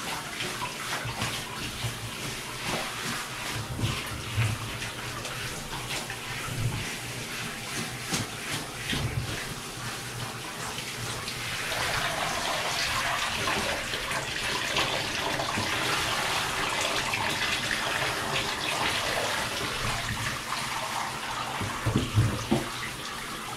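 Handheld shower spraying water over a Labrador's wet coat, the water splashing onto the plastic bath lid beneath; the spray grows fuller and louder around the middle.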